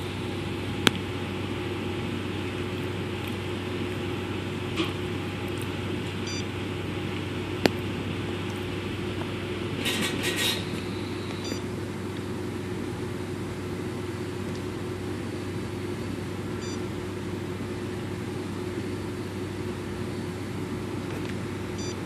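Steady machine hum, like a fan or air conditioner running, with a few single sharp clicks and a short burst of rapid high chirps about ten seconds in.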